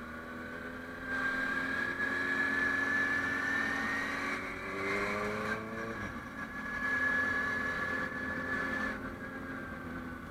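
Honda CB650F's inline-four engine running under way, its pitch climbing as it accelerates about four to six seconds in, then dropping suddenly as the throttle closes or a gear changes.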